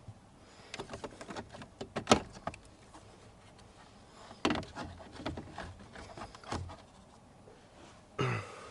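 Irregular clicks, knocks and rubbing of hand tools and plastic dashboard parts being handled under the dash, with the sharpest click about two seconds in and a rustling burst near the end.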